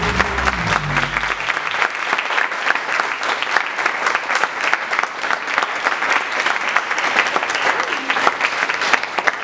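Audience applauding steadily, with the music's last low note dying out about a second and a half in.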